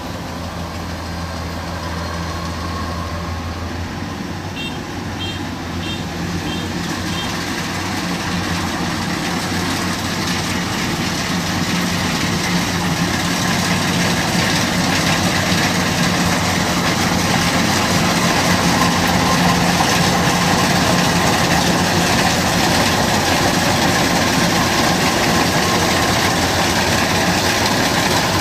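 Kubota DC-93 combine harvester running steadily, its engine and threshing noise growing gradually louder. A few short high beeps sound about five to seven seconds in.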